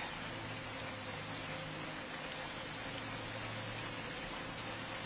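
Steady rain falling and splashing, with a faint low hum underneath.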